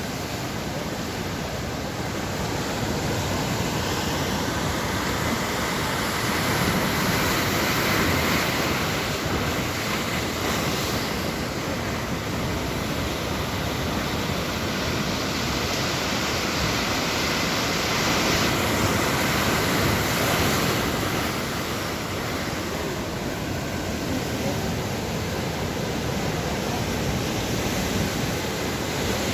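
Atlantic Ocean surf breaking on the shore: a continuous rushing wash that swells louder twice, about seven seconds in and again about eighteen seconds in.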